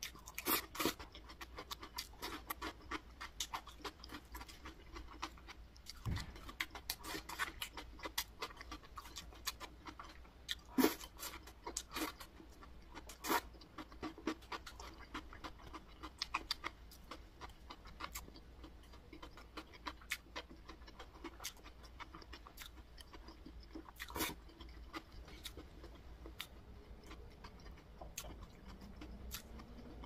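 A person eating and chewing food, with many short, irregular clicks and crunches.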